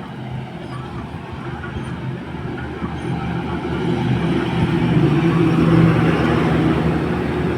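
A road vehicle's engine running with traffic noise, swelling louder about two-thirds of the way through as it draws closer.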